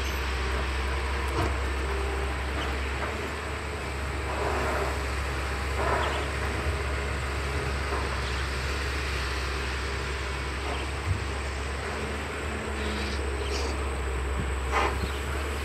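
Caterpillar 320CL long-arm excavator's diesel engine running steadily under work, with brief swells of noise about four and six seconds in and again near the end.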